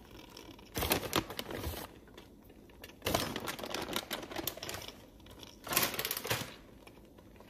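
Plastic zip-top bag of shredded cheddar crinkling and crackling as it is handled, in three short spells about a second in, about three seconds in and near six seconds.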